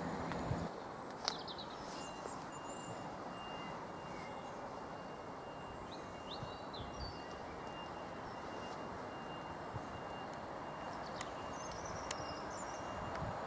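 Quiet outdoor ambience with a few short bird chirps and a faint, thin steady high tone. A low engine drone cuts off abruptly under a second in.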